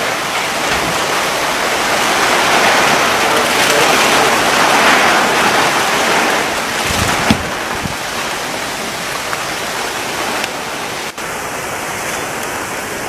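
Heavy rain pouring down, a loud, dense, steady hiss that swells in the middle, with a brief thump about seven seconds in.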